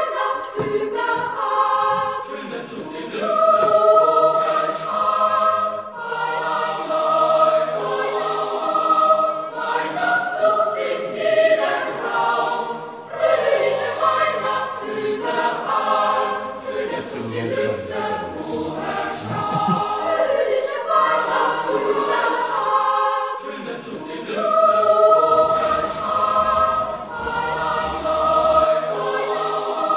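Background music: a choir singing a Christmas carol in held chords.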